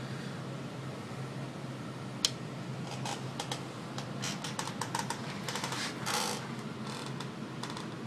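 Steady hum and fan hiss, typical of a high-power tube amplifier's cooling blower running. About two seconds in there is one sharp click, followed by a run of lighter, irregular clicks and taps.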